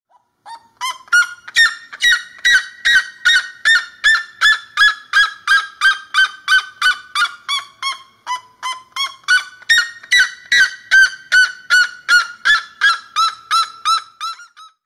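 A waterfowl, likely a goose, honking in a long, fast series of short calls, about three a second. The pitch of the calls slowly falls, jumps back up about ten seconds in, then falls again.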